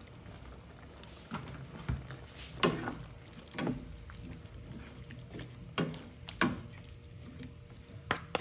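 Wooden spatula stirring a wet stew of ground pork, squash and string beans in a wok, with liquid sloshing and about eight sharp knocks and scrapes of the spatula against the pan.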